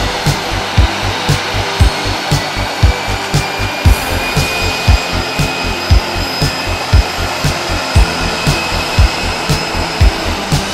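Background music with a steady drum beat of about two thumps a second, over a steady jet-engine rush and whine from an Airbus A320 taxiing.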